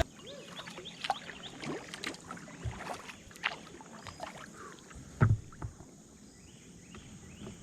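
Kayak paddling: a paddle dipping and splashing in the water, with scattered knocks against the hull, the loudest about five seconds in.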